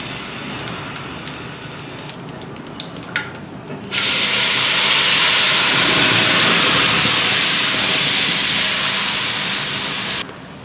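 Panch phoron spices frying in hot mustard oil with a steady sizzle and a few small clicks. About four seconds in, strained elephant apple pulp is poured into the hot oil and it breaks into a loud, steady hiss that stops suddenly near the end.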